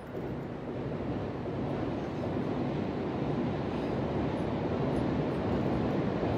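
Steady rumble of a passing vehicle, growing louder over several seconds.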